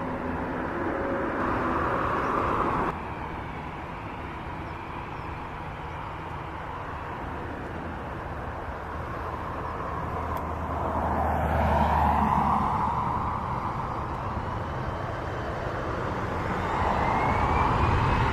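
Jet airliner engine noise outdoors: a steady rush that cuts off abruptly about three seconds in, then swells twice, with a faint rising whine near the end.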